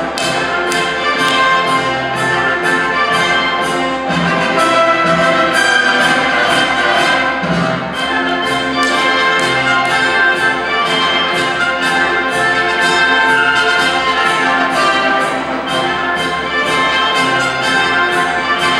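Brass-led orchestral music with a quick, steady beat of about three a second.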